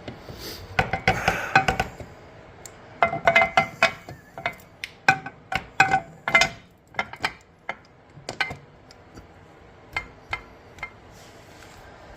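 Metal parts clinking and knocking, each with a short ring, in irregular clusters that thin out toward the end: the rear swing arm, bolts and axle of a Yamaha Morphous scooter being fitted by hand.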